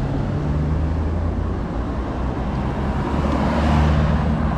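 Road traffic: vehicle engines running steadily close by, with the traffic noise swelling as a vehicle passes about three and a half seconds in.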